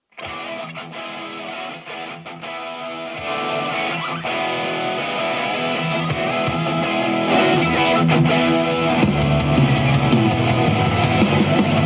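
Guitar-driven rock music played through a Sonos One SL smart speaker, with a steady beat. The bass comes in about three seconds in and gets louder near the end.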